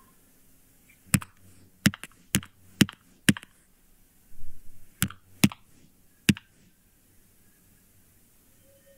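About eight sharp taps on a hard surface, unevenly spaced roughly half a second apart with a longer gap midway, where a short low rustle comes in: homemade Foley effects played back against an animation.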